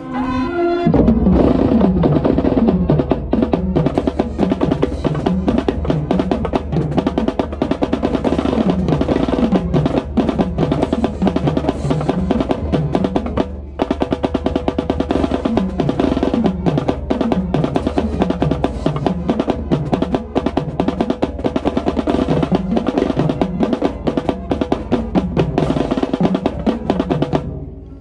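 Marching drumline playing a fast, loud cadence, with rapid snare drum strokes close up and repeated runs on the lower drums that fall in pitch. The drumming breaks off briefly about halfway through and stops abruptly near the end.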